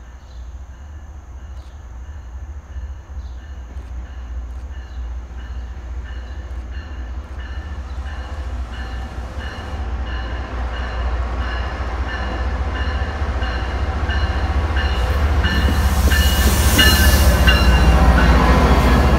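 MBTA commuter train led by an HSP-46 diesel-electric locomotive approaching and pulling in alongside. Its engine rumble grows steadily louder, and the locomotive's passing brings a peak of hissing rail and wheel noise near the end.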